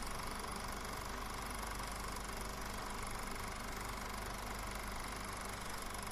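Steady hiss and hum with no distinct events: the noise floor of a silent film transferred from VHS tape.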